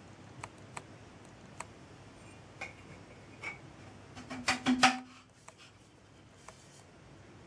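A metal cylinder casting being handled and fitted onto a copper boiler tube: scattered light clicks, with a short cluster of louder knocks about four and a half seconds in.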